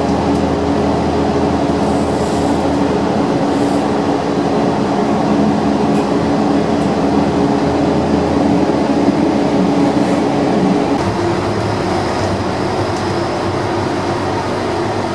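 Rome Metro Line C train running, heard from inside the carriage: a steady rumble of wheels and running gear with a droning hum. A faint high whine comes in about eleven seconds in.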